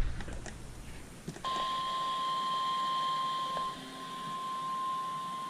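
NOAA Weather Radio warning alarm tone, a steady high single-pitched beep that starts abruptly about a second and a half in after faint radio hiss. It is the alert signal announcing a severe thunderstorm warning.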